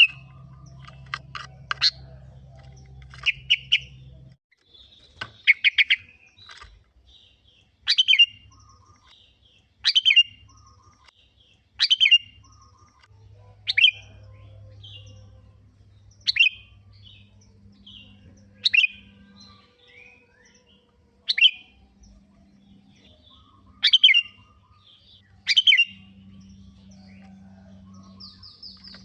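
Sooty-headed bulbul (kutilang) singing, short bright chirping phrases repeated about every two seconds, over a faint low hum.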